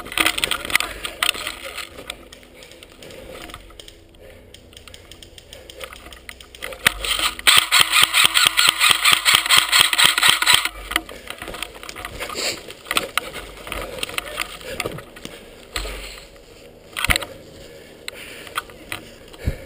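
Airsoft electric gun (AEG) firing a rapid full-auto burst of about three seconds around the middle, with a couple of single sharp shots later.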